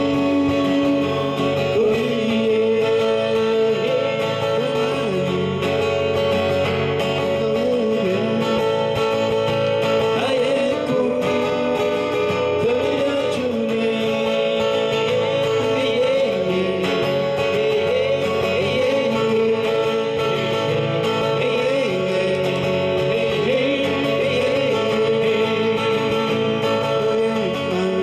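Live acoustic music: two steel-string acoustic guitars strummed together, with a melody line carried over them.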